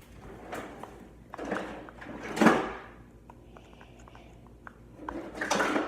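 A spoon scraping around a bowl as a glue-based slime mixture is stirred, in several uneven scraping swells, the loudest about two and a half seconds in.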